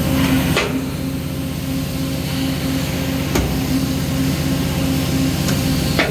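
Peddinghaus PCD-1100/3C CNC beam drill and conveyor running: a steady machine hum with a low tone pulsing about three times a second, and a few sharp metallic knocks.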